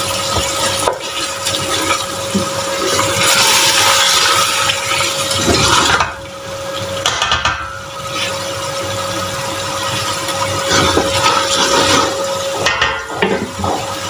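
Lamb trotters sizzling and frying in thick masala in a steel pot while being stirred with a wooden spatula, a steady frying hiss with scrapes of the spatula. A steady hum runs behind it and breaks off briefly twice.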